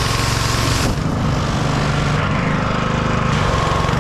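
Simpson 3100 PSI gas pressure washer running, its small petrol engine running steadily under a hiss that thins out about a second in.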